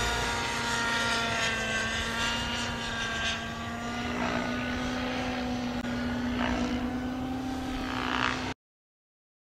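Radio-controlled model helicopter flying a stall turn aerobatic maneuver: the engine and rotor give a steady pitched drone whose upper tones waver slightly as it maneuvers. The sound cuts off suddenly near the end.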